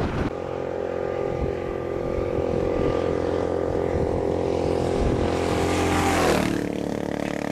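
A motor vehicle drives past: its engine hum and tyre noise grow louder to about six seconds in, then the pitch drops as it goes by and it carries on more quietly.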